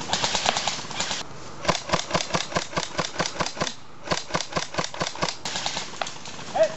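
Airsoft electric rifle firing on full auto in three bursts, a rapid clatter of shots at about seven a second. A single short, louder sound follows near the end.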